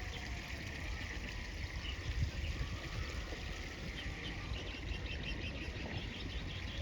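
Riverside ambience: running water and a low rumble of wind on the microphone, with small birds chirping in quick repeated notes that grow busier in the second half.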